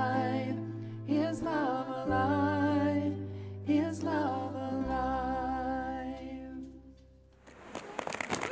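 Live band of cello, electric bass and voice playing a slow melody of long held notes with vibrato over sustained bass notes. The music dies away near the end, and a noisy crowd rustle rises just before the end.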